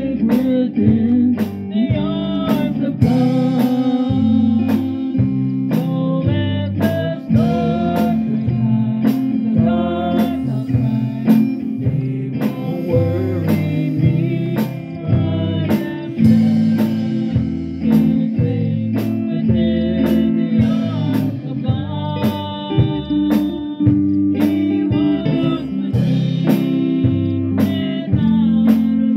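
A live gospel band playing a song: electric guitar and a drum kit with a steady beat, with voices singing.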